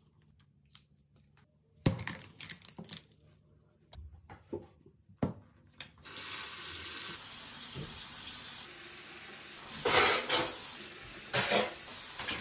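Plastic toothbrushes and a toothpaste tube clicking and knocking on a stone countertop. About six seconds in, a bathroom faucet is turned on and water runs steadily into the sink, with a few louder splashes.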